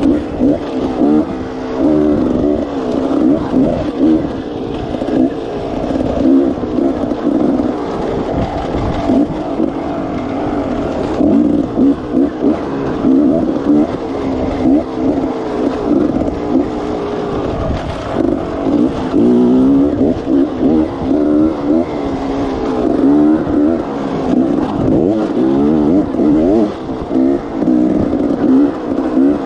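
Enduro dirt bike engine being ridden hard on a narrow trail, its pitch rising and falling constantly with short bursts of throttle.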